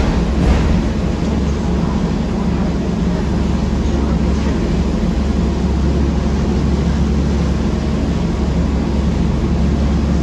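Steady low drone of a 2006 Orion VII transit bus's engine heard inside the passenger cabin, with a brief knock about half a second in.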